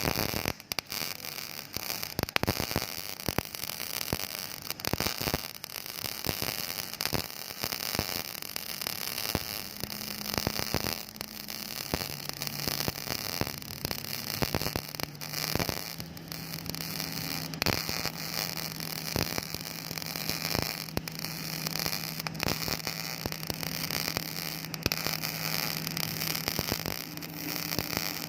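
Flux-cored arc welding: the arc's steady crackling hiss, with frequent sharp pops. A low steady hum joins in about twelve seconds in.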